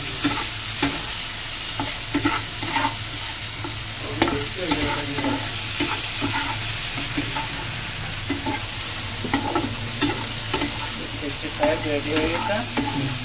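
Chicken 65 pieces sizzling in sauce in a non-stick frying pan while a slotted turner stirs and scrapes them: a steady frying hiss broken by irregular clicks and scrapes of the turner against the pan.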